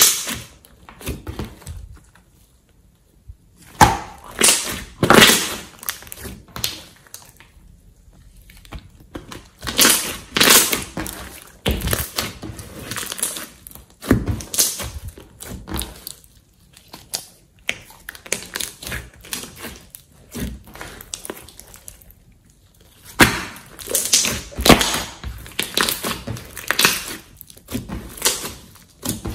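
Hands squeezing, poking and pressing a large mass of thick glossy slime: irregular wet squelches and crackly pops as trapped air is pushed out, coming in bursts with short pauses between.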